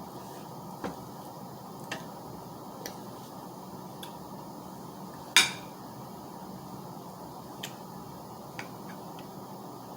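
Scattered light clicks and clinks of utensils against dishes during eating, one louder ringing clink about halfway through, over a steady background hiss.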